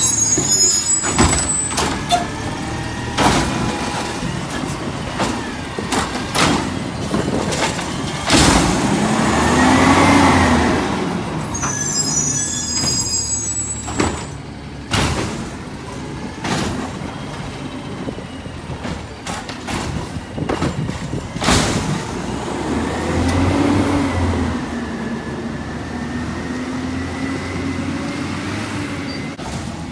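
CNG-powered Autocar side-load garbage truck working the curb: its engine revs up and down as the automated arm lifts and dumps a cart, with repeated knocks and bangs of the cart and arm, a hiss of air brakes about halfway through, and the truck pulling away and running.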